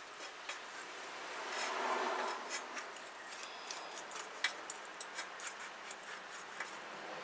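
Quiet metallic rubbing and small clicks of a feeler gauge sliding between a rocker arm and valve stem on a Predator 212 engine while the rocker adjustment nut is turned to set valve lash. The scraping swells for a moment about two seconds in.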